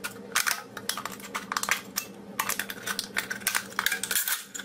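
Scissors cutting through a thin aluminium drink can: a fast, uneven run of metallic snips and crinkling clicks, with a faint steady hum beneath.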